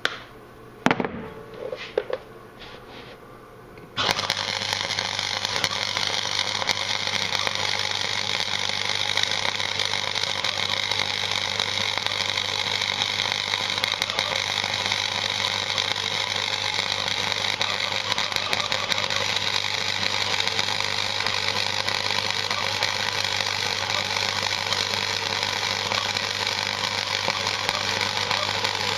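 Gasless flux-core welder arc crackling steadily as a bead is run, starting suddenly about four seconds in after a few clicks and knocks, with a steady low hum beneath it.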